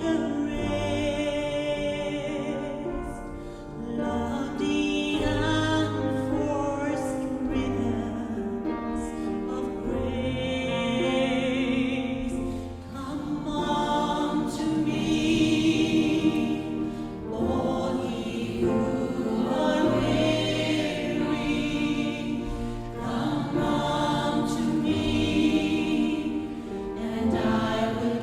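Gospel choir singing a song, several voices together over sustained low notes.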